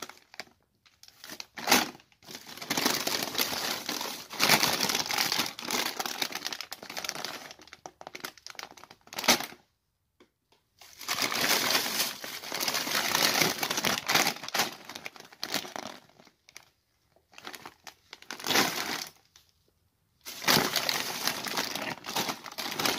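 Plastic carrier bag and crisp packets rustling and crinkling as they are handled and pulled out of the bag, in bursts with a couple of short pauses.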